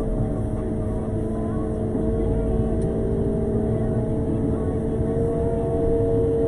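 Road sweeper running as it drives along the street, its engine and machinery giving a steady droning hum over a low rumble, rising a little in pitch about five seconds in.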